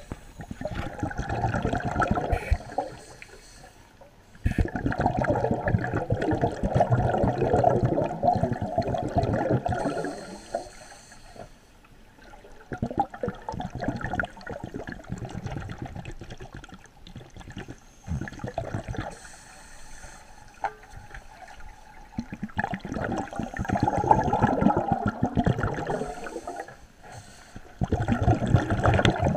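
Scuba diver's exhaled air bubbling from the regulator, heard underwater: several bursts of burbling, each a few seconds long, with quieter gaps between breaths.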